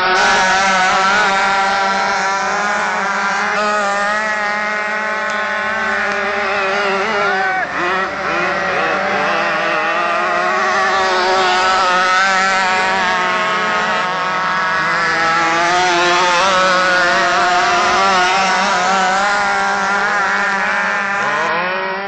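Radio-controlled racing powerboats at full speed, their small petrol two-stroke engines running at high revs without a break, the pitch wavering up and down as the boats speed along and turn.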